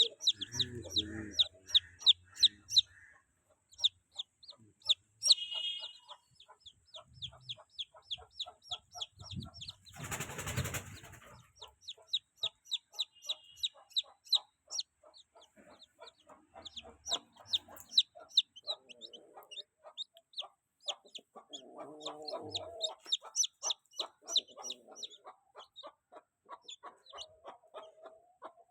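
Chicks peeping in a rapid, steady series of short high chirps, about four or five a second. A brief burst of noise comes about ten seconds in.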